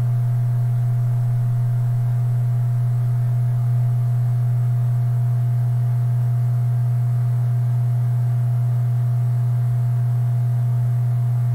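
Steady low electrical hum, with a few fainter higher tones above it, unchanging throughout.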